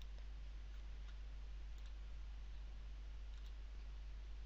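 A few faint computer mouse clicks, spaced a second or two apart, over a steady low electrical hum and hiss.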